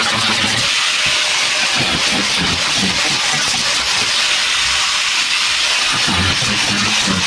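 Angle grinder with a cut-off disc cutting through the rusty sheet-steel floor of a truck cab: a loud, steady, high hissing grind.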